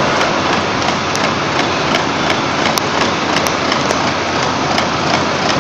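Steady machinery noise from workshop machines running, with faint scattered clicks.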